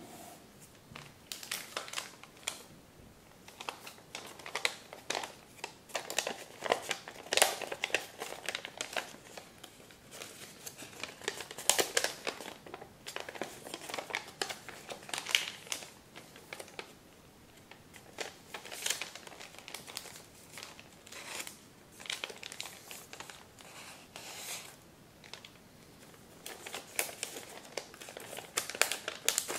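A large sheet of thin kami origami paper rustling and crinkling in the hands as it is folded and collapsed into shape. It comes as irregular crackles with short pauses between them.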